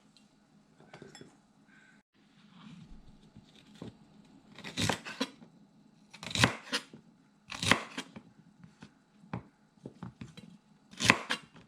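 Kitchen knife cutting through vegetables onto a cutting board: faint handling at first, then a handful of separate, irregular cuts from about five seconds in.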